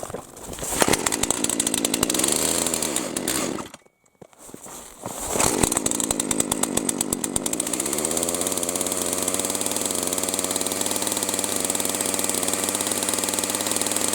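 Two-stroke chainsaw running at high revs while cutting up firewood, with a brief drop-out about four seconds in. After the drop-out it picks up again and settles into a steady high-speed whine.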